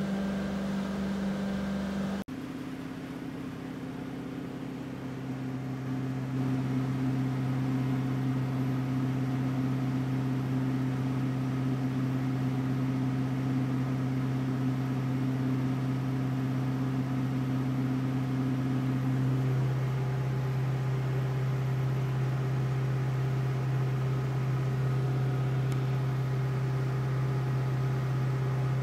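Motorboat engine running at cruising speed: a steady, even drone over a hiss of wind and water. Its pitch changes abruptly about two seconds in, then holds steady.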